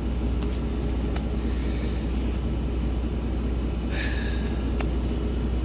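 Steady low rumble like an idling vehicle engine, with a few faint clicks and a short papery rustle of baseball cards being handled about four seconds in.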